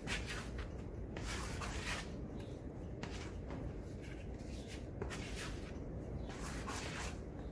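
Duraglass body filler being scraped and worked, short irregular scraping strokes a few a second over a low shop hum.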